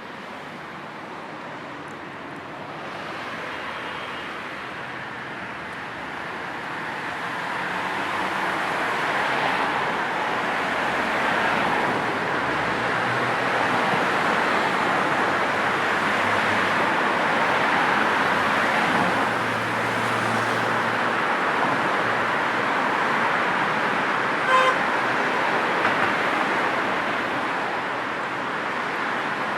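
Road traffic noise, a steady wash of passing cars and tyres that swells over the first several seconds and then holds. A car horn gives one short toot near the end.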